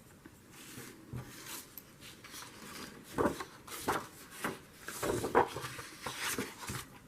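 Paper and a ruler handled on a tabletop while a page is measured and marked: soft rustling, then a string of light taps and clicks, most of them in the second half.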